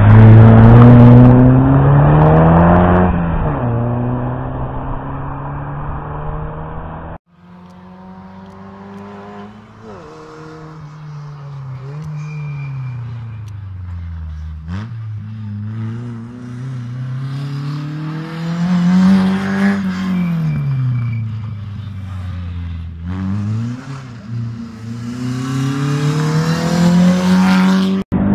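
Historic rally car engines accelerating hard through corners, the revs climbing and dropping with each gear change. First a first-generation Volkswagen Golf is heard loud and close. After a cut about seven seconds in, a second car sounds farther off, its engine rising and falling again and again through the bends.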